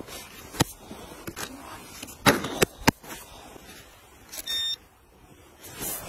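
Sharp clicks and knocks as the plastic and metal underside of a radio-controlled crawler truck is handled, then one short electronic beep from the RC truck about four and a half seconds in.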